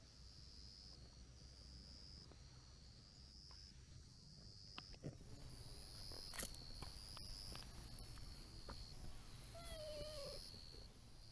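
Insects chirping in short repeated trills throughout, with a few light rustles and taps. Near the end a brown-tabby-and-white cat gives one short meow that drops in pitch at its close.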